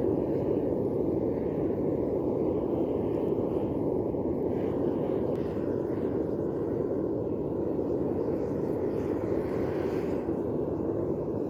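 Propane melting furnace with its burner running, a steady rushing noise that holds even throughout.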